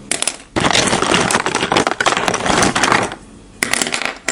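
Sound effect of rummaging: objects clattering and rustling with many sharp clicks, easing off about three seconds in and then starting up again.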